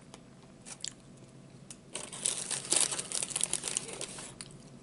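Food packaging crinkling and crackling as it is handled, a dense run of crackles lasting a little over two seconds that starts about two seconds in, after a few faint clicks.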